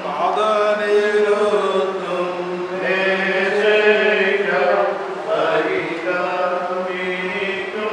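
A priest chanting a liturgical prayer, one man's voice in long, slow melodic phrases with short pauses between them.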